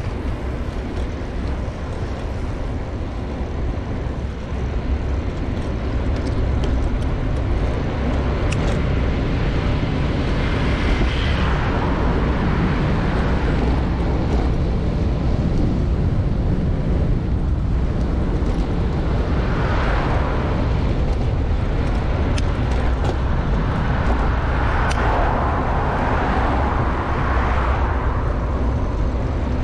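Road noise on a bicycle ride: wind rumbles steadily on the microphone, and cars pass with their tyre and engine noise swelling and fading about three times.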